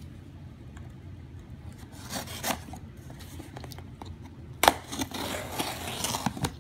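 Swiss Army knife blade slitting and scraping along packing tape on a cardboard box, with the tape tearing. A sharp tap about two-thirds of the way in is the loudest sound.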